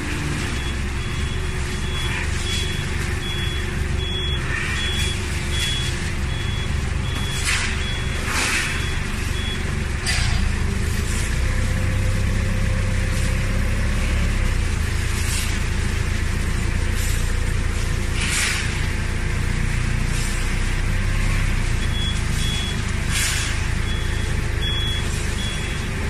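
Forklift engine running, with a high-pitched warning beep repeating about twice a second for the first nine seconds and again near the end. The engine gets louder about ten seconds in, and there are occasional clanks.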